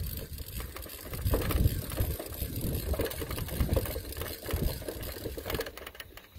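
Hand winder whirring with fast clicking as it winds the braided rubber motor of an old-time Wakefield rubber-powered model airplane. The whirring stops shortly before the end. Wind gusts buffet the microphone throughout.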